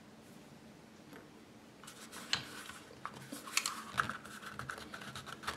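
Small clicks and scraping as the BRS-99's pistol grip is worked loose from the frame by hand. They begin about two seconds in and come irregularly until the end.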